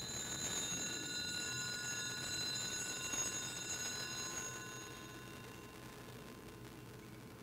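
Altar bells rung at the elevation of the consecrated host, a cluster of high bell tones ringing on together and fading away about five seconds in.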